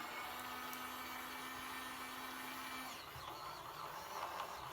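Small electric motor of a mini toy makeup brush washing machine running with a steady hum that stops about three seconds in, leaving a rougher noise.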